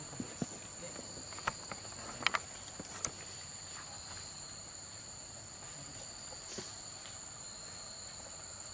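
Steady high-pitched drone of forest insects, holding two pitches throughout, with a few short sharp clicks scattered through it; the loudest click comes at the very end.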